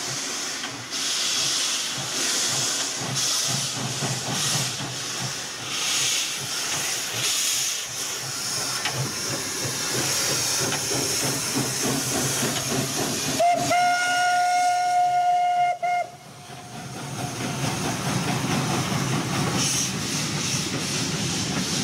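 Steam locomotive 434.2186 pulling away with a train: a slow, uneven beat of exhaust chuffs over hissing steam. Past the middle, one steam whistle blast of about two and a half seconds that cuts off abruptly.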